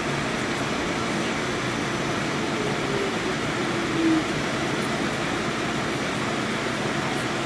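Steady interior noise on board an R46 subway car, with a brief higher tone about four seconds in.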